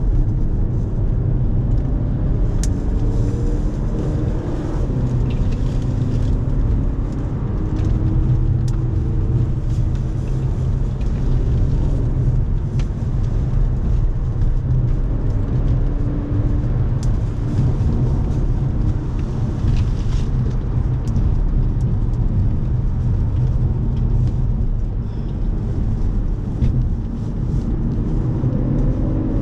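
Audi's engine heard from inside the cabin at racing speed, its note repeatedly climbing as the car accelerates through the gears and dropping back at each shift, over a heavy rumble of road and wind noise.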